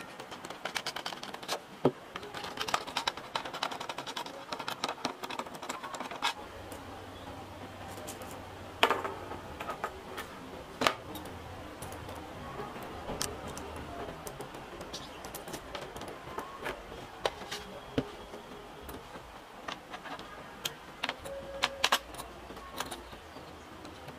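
Irregular small clicks, clinks and knocks of an electric trim router's parts being handled: the motor body, its clear plastic base and small metal screws and fittings being taken off and put back. A few louder knocks stand out, and the router's motor is not running.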